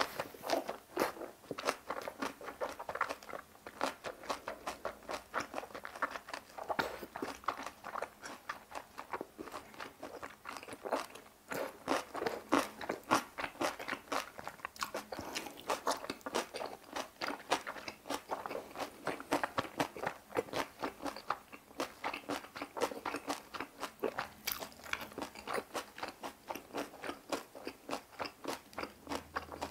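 Close-miked chewing of boiled pork (bossam) and kimjang kimchi: a steady run of crunches and chews.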